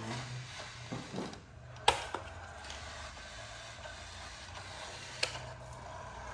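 Remote-control toy car's small electric motor and gearbox whirring steadily as it drives, with two sharp clicks, the louder about two seconds in and another about five seconds in.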